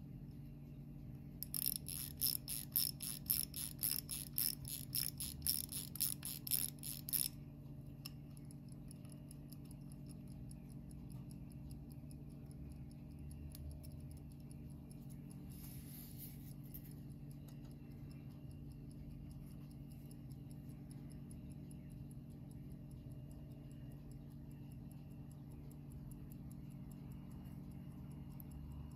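Crown of an IWC hand-wound pocket-watch movement being wound: a run of rapid ratchet clicks, about four a second, lasting about six seconds. After that the running movement ticks faintly over a low steady hum.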